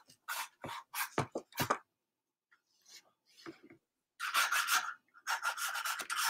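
Pencil scratching across sketchbook paper: several short separate strokes in the first two seconds, then from about four seconds in a quick run of back-and-forth shading strokes.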